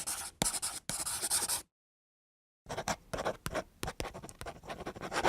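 Handwriting: a writing tool scratching in short bursts of strokes with small ticks. It stops for about a second near the middle, then resumes.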